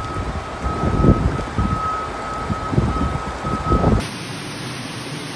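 Wind gusting on the microphone, with a high electronic beep sounding on and off. About four seconds in this gives way to a steady rush of floodwater cascading down subway station stairs.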